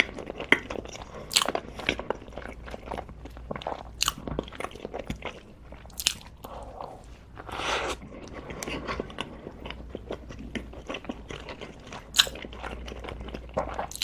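A person biting and chewing crunchy food close to the microphone: a run of irregular crunches and clicks, the sharpest about one and a half, four, six and twelve seconds in.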